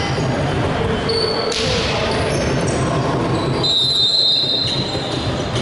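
Indoor basketball game sounds in a large, echoing gym: a basketball bouncing on the hardwood court, short high sneaker squeaks and scattered voices.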